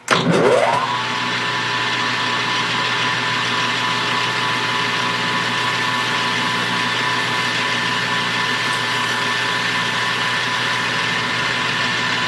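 Metal lathe starting up: the motor and spindle wind up to speed with a rising whine in the first second, then run steadily.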